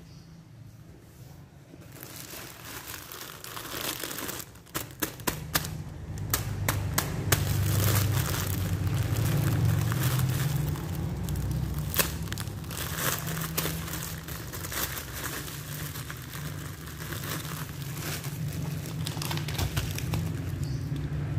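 Plastic snack bag crinkling and crackling as it is opened and handled. The crackles come thick from about four seconds in and thin out after the middle, over a low steady hum.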